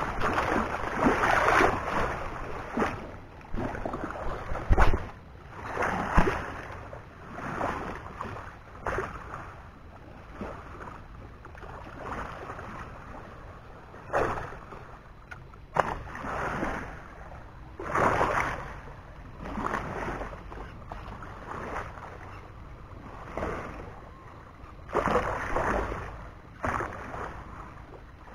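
Shallow sea water lapping and sloshing, swelling and fading every second or two, with a few sharp knocks.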